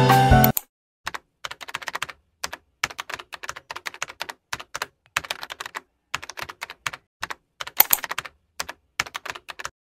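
Computer keyboard typing sound, irregular key clicks in quick runs with short pauses between them. A piece of music cuts off about half a second in.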